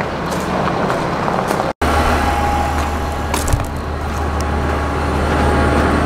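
Vehicle engine running, with a deep steady hum after a brief dropout nearly two seconds in.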